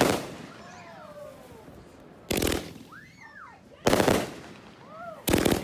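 Fireworks going off in four quick crackling bursts of rapid pops, about one every second and a half.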